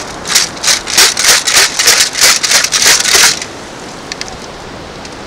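Pebbles and gravel rattling in a perforated metal beach scoop as it is shaken to sift out a find: a fast run of rattles, about four a second, that stops about three and a half seconds in.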